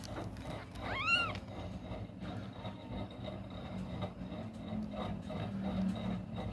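A newborn kitten gives one high-pitched mew about a second in, its pitch rising and then falling, as it cries while searching for its mother's milk. A steady low hum runs underneath.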